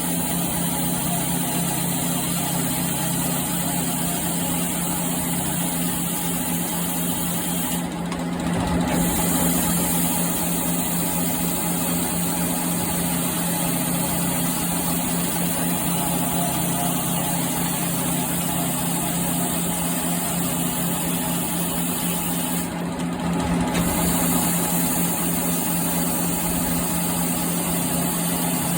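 Automatic circular saw cutting aluminium stock, its motor running with a steady hum. About eight seconds in, and again some fifteen seconds later, the sound briefly changes with a low thump and then runs a little louder, as the machine moves through its cutting cycle.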